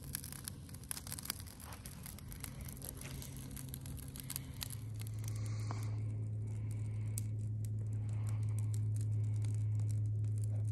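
Campfire of logs and dry leaves crackling and popping in a steel fire ring, just catching. About halfway through the crackle thins out and a steady low hum takes over.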